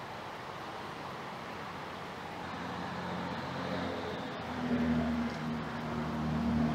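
Outdoor traffic noise, with a motor vehicle's engine hum growing louder about halfway through, as if a vehicle is approaching or passing.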